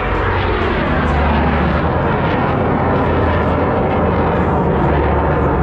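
Yak-110 aerobatic aircraft flying a low pass, its engines making a steady drone with a low hum.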